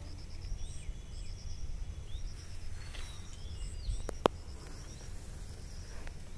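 Outdoor ambience of birds and insects: quick trains of high chirps and a few short sliding calls over a low wind rumble, with one sharp click about four seconds in.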